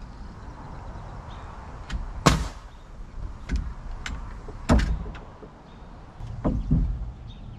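Nails being driven into wood framing: a few sharp cracks a couple of seconds apart, at about two seconds and five seconds in and again near the end, with lighter clicks and knocks between them.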